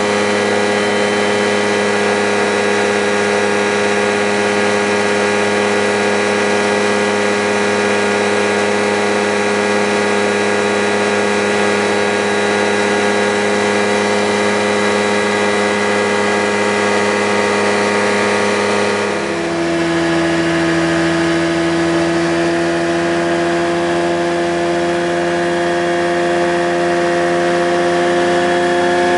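Rans Coyote ultralight's engine and propeller droning steadily, heard from inside the cabin with rushing air noise. About two-thirds through, the engine note suddenly drops in pitch, then slowly rises again.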